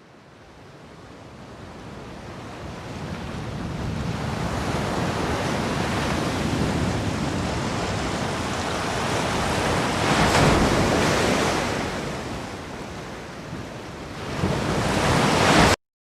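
Sea waves: a noisy wash of surf that fades up out of silence, swells to a crash about ten seconds in and again near the end, then cuts off abruptly.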